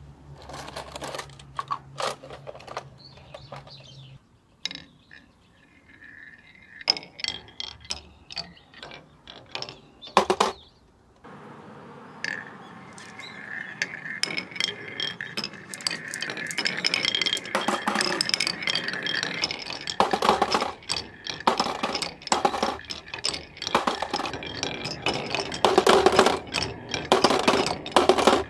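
Marbles rolling along wooden marble-run tracks, with sparse clicks and knocks at first, then a continuous rolling noise with rapid clicking that grows louder near the end as the balls run down and clink into a clear plastic toy car.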